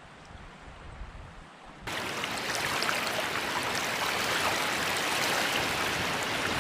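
Faint steady hiss, then about two seconds in an abrupt cut to a louder, steady, even rushing of water.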